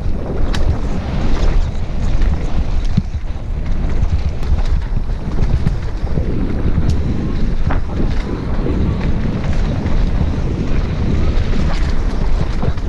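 Wind buffeting a helmet-mounted camera microphone as a mountain bike descends a dirt singletrack at speed, with a steady rumble of tyres over the trail and a few scattered sharp clicks and rattles from the bike.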